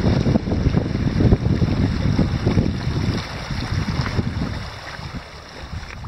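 Wind buffeting the microphone in uneven gusts over small waves washing onto a stony shore; the gusts ease off about four and a half seconds in.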